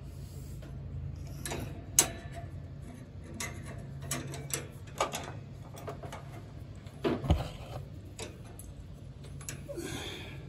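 Scattered metal clicks and knocks of bolts, pins and hand tools being handled at a lawn tractor's brake caliper during reassembly, the loudest knocks about two seconds in and about seven seconds in.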